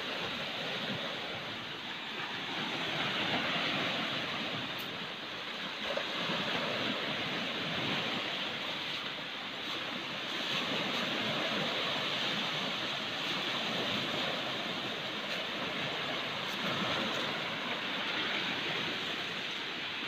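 Sea waves washing onto a rocky, stony shore: a steady rushing wash that swells and eases every few seconds.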